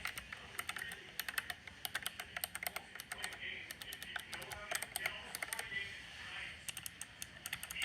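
Computer keyboard being typed on: a fast, irregular run of key clicks.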